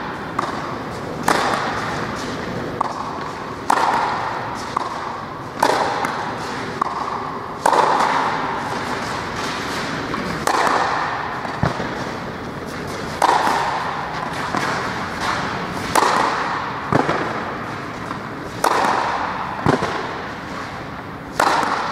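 Tennis rally: rackets striking the ball in a steady exchange, a sharp hit about every one to two seconds, each echoing in a covered indoor tennis hall.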